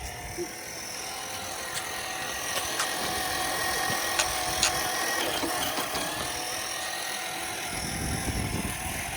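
Traxxas TRX-6 6x6 RC crawler's electric motor and gear drivetrain whining steadily at crawling speed under cruise control, with a few small clicks as it works over the ground.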